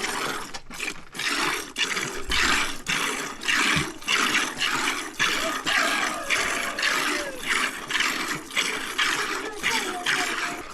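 Sheep being milked by hand: milk squirting into a pail in a steady rhythm of about two strokes a second.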